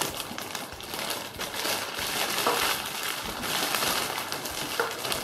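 A large plastic bag of popcorn crinkling and rustling as a hand digs into it, a continuous crackly rustle with many small irregular crackles.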